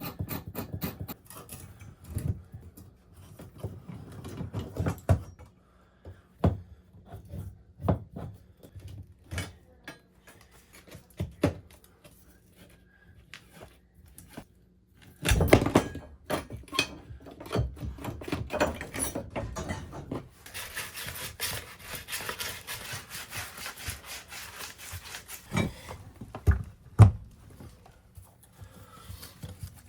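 Hand work with tools and pipes: scattered knocks and thuds with rubbing and scraping between them, one loud clatter about halfway through, and a few seconds of fast rasping scrapes about two-thirds of the way in.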